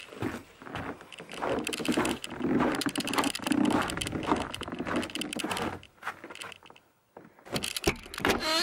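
Footsteps crunching through snow, with clothing rustling against the camera. After a short pause, a door handle clicks as it is turned near the end.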